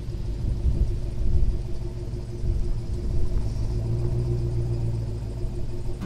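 Hummer H2 running, a steady low rumble.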